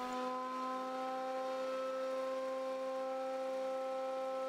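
JET JJP-8BT jointer/planer's 13-amp motor and 9000 RPM cutterhead running unloaded with a steady, even whine, no board in the cutters yet.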